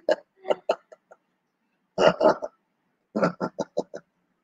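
Laughter in bursts of short pulses: a few near the start, one burst about two seconds in, and a quick string of ha-ha pulses near the end.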